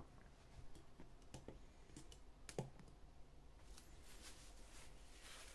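Faint, scattered clicks and taps of hands handling items on a desk, a fabric helmet bag among them, irregular and spaced apart. The strongest tap comes about two and a half seconds in.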